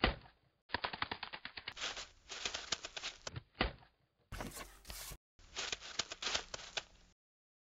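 A series of spliced-in sound-effect clips of rapid clicking and rattling, each cutting in and out abruptly with brief dead silence between them.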